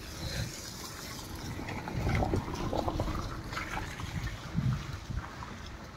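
Footsteps squelching on wet, muddy ground after rain, in an uneven run of soft thuds and scuffs.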